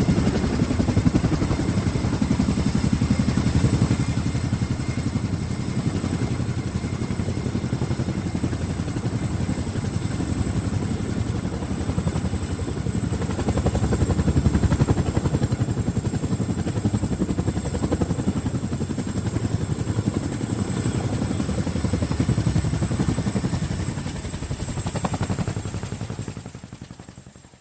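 Boeing CH-47 Chinook tandem-rotor helicopter running: a rapid, steady rotor chop with a high, steady turbine whine above it, fading out near the end.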